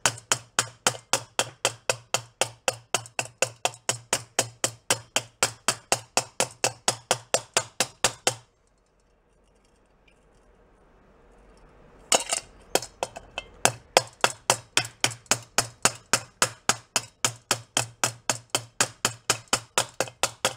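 Rapid, even tapping of a pick hammer on a steel motorcycle headlight bucket, about four metallic taps a second, working down high spots around a welded hole. The tapping stops for about three and a half seconds near the middle, then resumes at the same pace.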